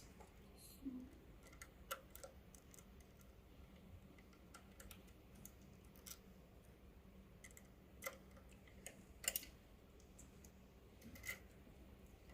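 Faint, irregular light clicks and ticks of a screwdriver and small metal parts as a screw is undone from a power supply's mounting.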